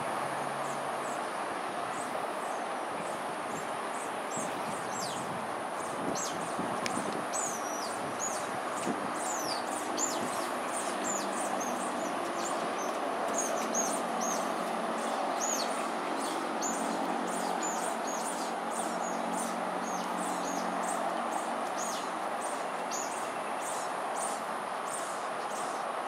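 Steady hum of distant road traffic from an expressway. Over it, many short, high bird chirps come thick and fast through the middle and thin out near the end.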